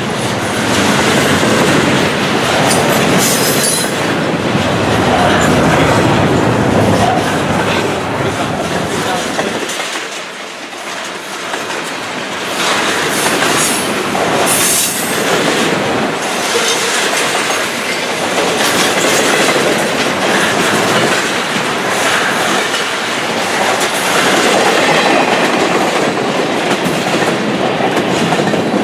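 Intermodal freight train cars rolling past, wheels clattering over the rail joints, with a couple of brief high wheel squeals.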